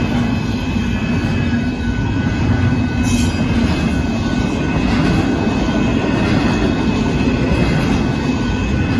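Double-stack container cars of a Union Pacific intermodal freight train rolling past at speed, a steady loud rumble of wheels on rail with a thin steady high tone running through it.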